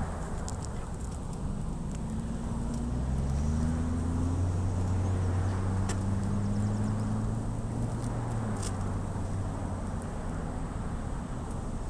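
A motor vehicle's engine going by: a low hum that rises a little in pitch from about two seconds in, holds, and fades away near the end.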